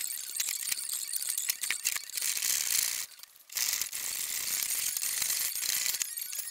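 Hand plane being pushed along a maple leg blank, the iron shearing off shavings with a scratchy hiss, stroke after stroke, with a short pause about three seconds in.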